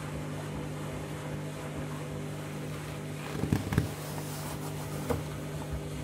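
Candy front-loading washing machine running its wash, the drum motor giving a steady hum with several tones. A few louder knocks come about three and a half seconds in and one more near five seconds.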